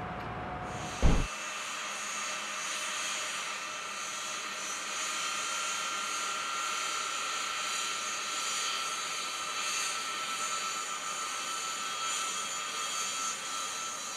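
Steady machine noise, a hiss with a high whine in it, that does not change; a single dull thump about a second in.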